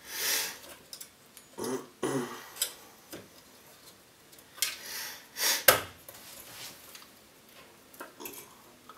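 Handling noise as a plastic 120 mm Be quiet Pure Wings 2 fan is pressed onto the aluminium fins of a low-profile CPU cooler and its wire clips are bent into place: a few short scrapes and clicks, the sharpest about two thirds of the way through.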